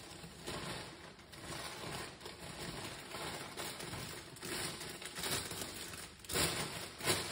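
Irregular soft crinkling and rustling, with two louder rustling scrapes near the end.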